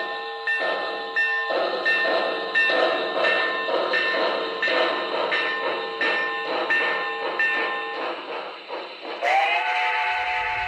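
Steam train sound effect: rhythmic chuffing about two to three times a second under steady whistle-like tones. About nine seconds in it gives way to short pitched calls that rise and fall.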